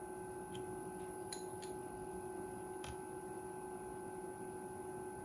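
Faint steady electrical hum with a thin steady tone, broken by a few soft ticks.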